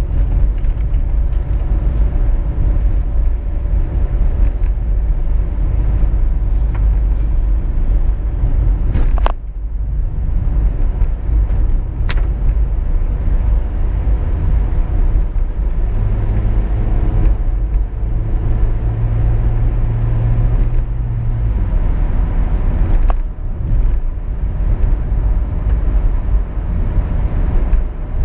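A car being driven along a road: a steady low rumble of engine and tyre noise, with a steadier engine hum for a few seconds past the middle. A few sharp clicks are heard, two of them followed by a short drop in the rumble.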